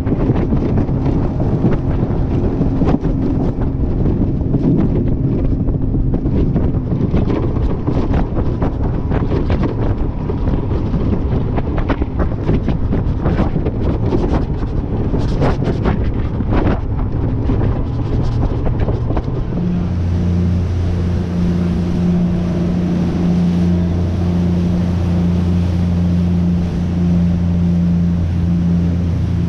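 Mercury 40 hp outboard driving a 13-foot Boston Whaler under way, with heavy wind buffeting on the microphone and irregular knocks. About two-thirds of the way through, the engine becomes a steady, even drone.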